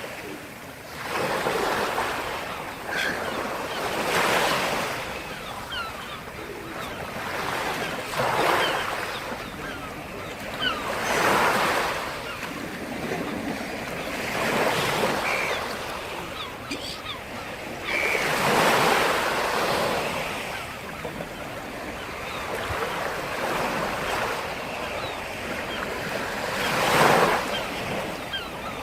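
Black Sea waves breaking on the shore: a steady wash of surf that swells every few seconds, with the loudest surge near the end.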